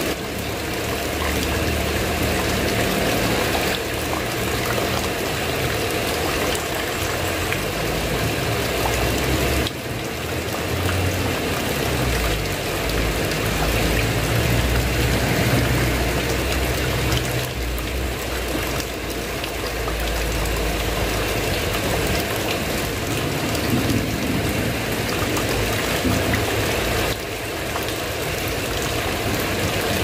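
Steady heavy rainfall, a dense continuous hiss, with a low rumble of thunder rolling underneath that swells through the middle.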